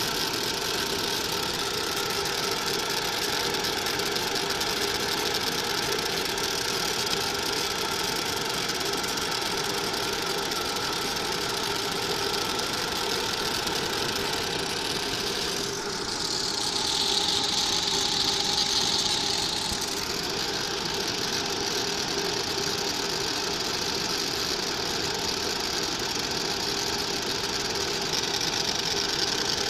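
Galvo laser cutting machine running as it cuts a pattern into card: a steady mechanical hum and hiss, with a louder high hiss for a few seconds about halfway through.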